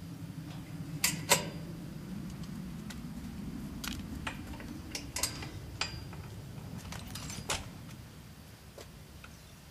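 Metal lock on a barred security gate being worked: about half a dozen sharp metallic clicks and rattles, the loudest pair about a second in, over a low steady hum.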